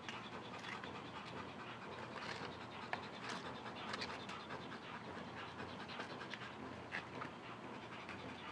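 German shepherd police dog panting, with faint scuffling and scratching.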